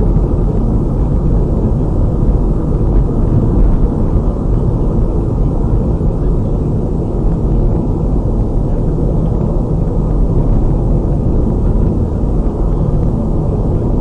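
Steady low rumble of road and engine noise inside the cabin of a car cruising on a highway.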